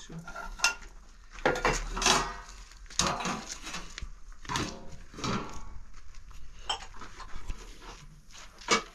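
Metal pots, trays, lids and plastic dishware clattering and knocking together as they are lifted out of and set back into a plastic crate, in a string of separate clanks.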